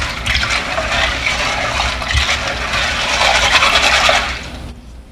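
Pinto beans being scrubbed through each other by hand in a pot of rinse water, a continuous rubbing and scraping of beans against one another and the pot that stops about four and a half seconds in.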